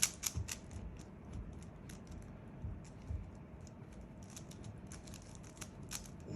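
A speedcube (Rubik's-type puzzle cube) being turned quickly by hand: fast runs of plastic clicks as the layers snap round, densest near the start and again shortly before the end.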